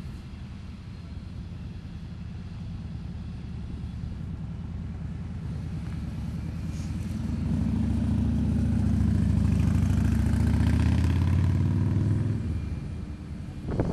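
An engine with a low, steady pitch builds up over several seconds, runs loudest from about eight to twelve seconds in, then drops away.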